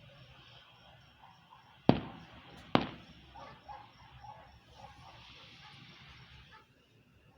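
Two sharp firework bangs a little under a second apart, each with a brief tail, followed later by a faint hiss.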